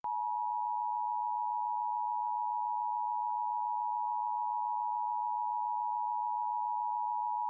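Emergency Alert System attention signal: the steady two-tone chord of 853 and 960 Hz, starting abruptly and holding level, which warns that an emergency alert message follows.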